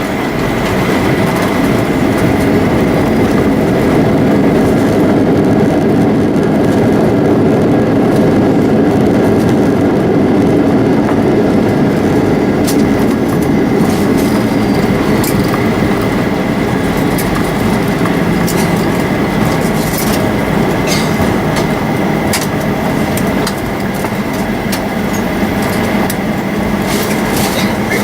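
Steady cabin noise inside a Boeing 737 airliner: rumble of the engines and airflow with a constant high whine, and a few light clicks or rattles in the second half.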